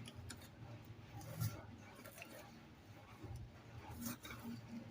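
A utensil stirring wet cake batter in a bowl: a soft squishing with a few light clicks against the bowl.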